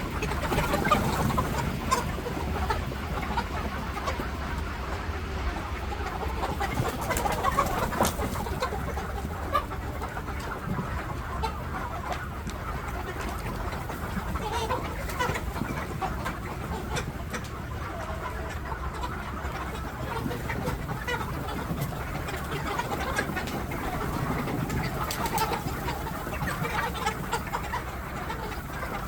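A flock of deshi (native) chickens clucking, with many short calls overlapping, over a steady low hum.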